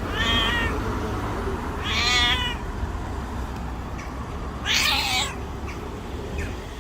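Domestic cat meowing three times: two drawn-out, wavering meows, then a third, harsher and raspier cry about five seconds in.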